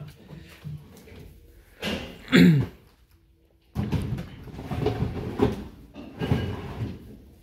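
Hard plastic rack case knocking and scraping as it is lifted and slid onto a truck's bed, in irregular bumps over the last few seconds. Earlier comes a loud brief sound that drops in pitch, about two and a half seconds in.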